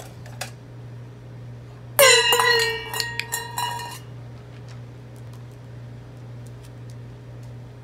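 A stainless steel dog bowl dropped from a little height onto stone paving: one loud ringing clang about two seconds in, followed by several quicker rattling bounces as it settles. The ringing stops abruptly about two seconds after the drop.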